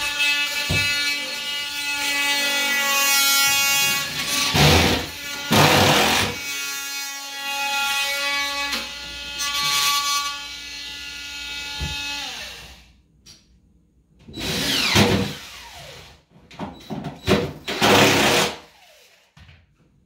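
Power drill running at a steady speed for about twelve seconds, then winding down, with two loud knocks about five and six seconds in. Short knocks and rattles follow near the end.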